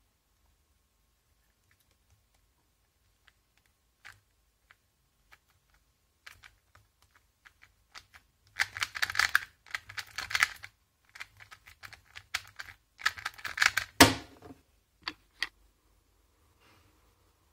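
A 2x2 speed cube turned by hand. First come scattered single plastic clicks, then two quick flurries of rapid clacking as algorithms are executed, the first about halfway through and the second a few seconds later. The second flurry ends in one louder sharp click.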